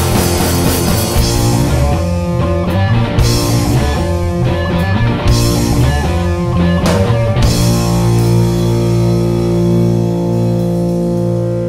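Rock band with guitars, bass and drums playing loudly, then striking a final chord about seven seconds in that rings out and slowly fades.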